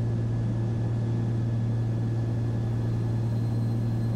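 Steady drone of the Cessna 340's twin turbocharged six-cylinder piston engines and propellers, heard inside the cockpit as an even low hum.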